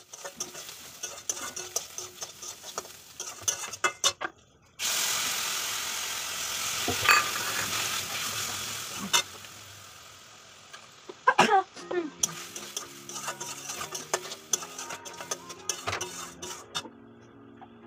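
Metal spatula stirring and scraping shredded cabbage in a steel karahi, with quick clicks against the pan. About five seconds in, a loud sizzle of frying starts suddenly and fades over several seconds. Background music comes in about two-thirds of the way through.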